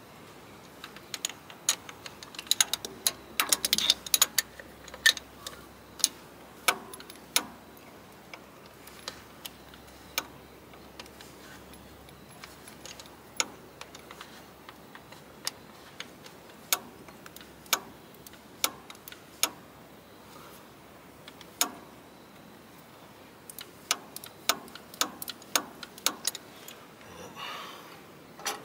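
Sharp metal clicks and taps of hand tools on the fuel pump's mounting bolts of a Cummins NHRS diesel engine, coming singly and at irregular intervals. They are busiest in the first several seconds and again near the end.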